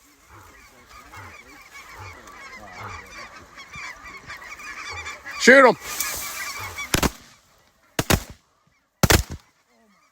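A large flock of snow geese calling in a dense, swelling chorus, then about five shotgun blasts in quick succession near the end, in pairs, as the birds come in.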